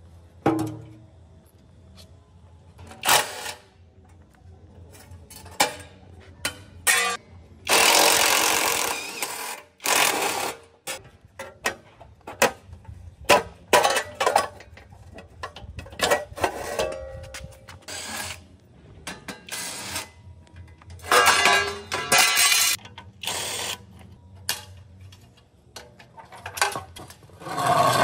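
Workshop tool sounds: irregular knocks and clicks over a steady low hum, with a louder stretch of rough, noisy tool sound about eight seconds in that lasts about a second and a half.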